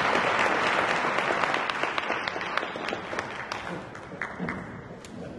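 Audience applauding a speaker's introduction, the clapping thinning out to a few scattered claps and then cutting off suddenly.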